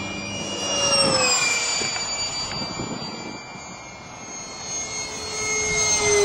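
Electric ducted fan of a Hobby-Lobby F-4 Phantom II foam RC jet (70 mm fan, brushless outrunner motor) whining at high power as the jet flies past twice. Its pitch drops as it goes by, about a second in and again near the end, and it is loudest at those moments.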